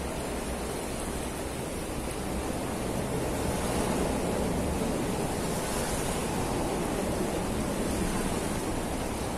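Steady rushing of a fast-flowing river, swelling slightly a few seconds in.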